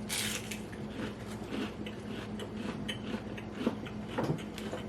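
Crunchy fried catfish being chewed close to the microphone: a run of small, irregular crisp crunches.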